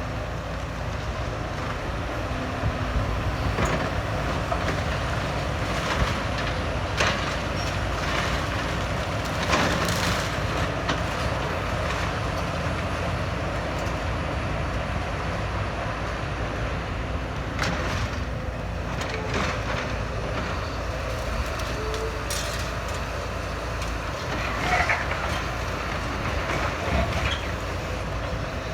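Heavy demolition machinery running steadily, with scattered knocks and crunches of breaking material every few seconds.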